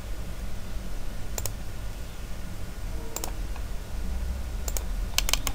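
Computer mouse clicking: single clicks about a second and a half and three seconds in, then a quick run of clicks near the end, over a steady low hum.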